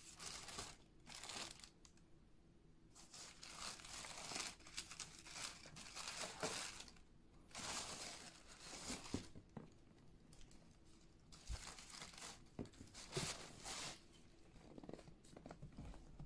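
Tissue paper crinkling and rustling in about eight bursts, with short quiet gaps, as it is pulled back from a new pair of sneakers packed in a cardboard shoebox.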